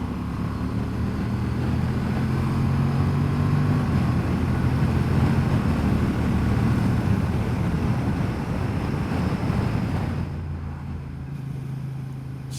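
Honda Transalp XL750's parallel-twin engine running at a steady cruise while riding, under heavy wind rush on the helmet microphone. The wind noise grows louder in the middle and eases near the end.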